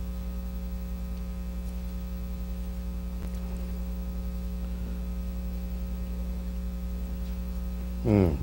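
Steady electrical mains hum, a low buzz holding one pitch throughout, with a short falling voice sound near the end.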